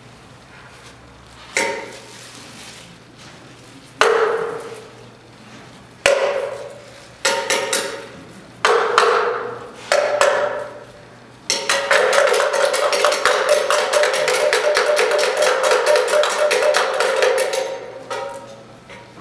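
Music cue in a stage play: a string of sudden hits, each dying away, about every one to two seconds, then from about twelve seconds in a sustained passage with a steady pitch and a fast rhythm, fading near the end.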